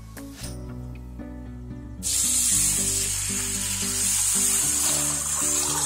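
Water poured into a stainless steel bowl of rice and lentils to wash them: a steady splashing rush that starts about two seconds in and eases off near the end.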